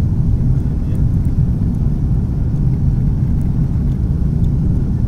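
Cabin noise of a Finnair Airbus A330 rolling on the ground after landing: a steady low rumble of engines and airframe.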